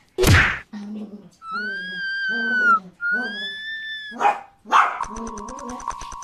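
Shih Tzus play-fighting: two long, high whines over a lower growling voice, then two sharp barks about four seconds in. A sharp whack-like hit comes at the start, and a rapid buzzing tone near the end.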